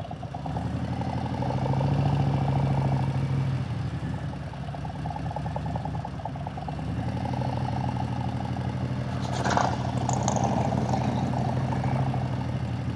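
Harley-Davidson Road Glide's V-twin engine running at low speed as the bike rolls slowly along. It grows louder about a second in, eases off, and grows louder again about seven seconds in as the throttle is opened. There is a brief sharp sound about nine and a half seconds in.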